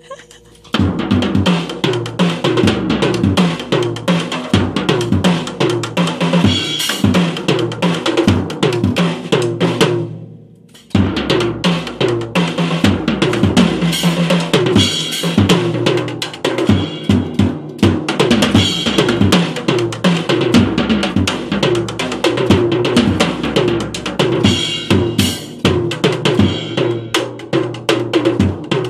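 Drums played in a fast, busy groove, with bass drum, snare and cymbal strikes. The playing stops for about a second around ten seconds in, then starts again.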